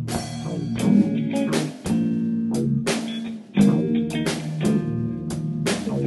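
Band music: guitar over bass guitar and drum kit, with regular drum and cymbal hits and brief breaks in the playing about two and three and a half seconds in.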